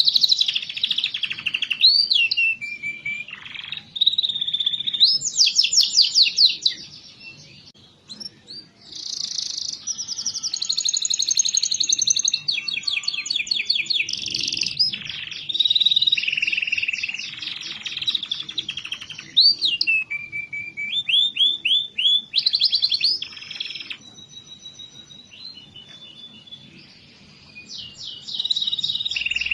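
Domestic canary singing a long, varied song of rapid trills, rolls and warbled phrases, high-pitched and continuous, easing off briefly about a quarter of the way in and again near the end.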